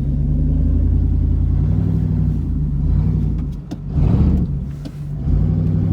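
Ford 460 big-block V8 engine running under load as the truck crawls a rough, snowy trail, its note rising and falling with the throttle and swelling loudest about four seconds in. A few short clunks come through as the truck bounces over the bumps.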